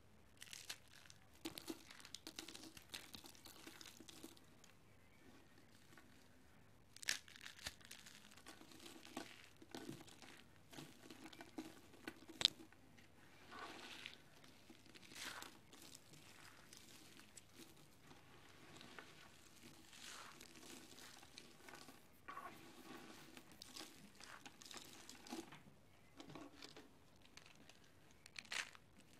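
Dry soap curls and slivers crunching and crumbling between the fingers into powder: a soft, continuous crackling, with a few sharper snaps, the loudest about seven seconds in and about twelve and a half seconds in.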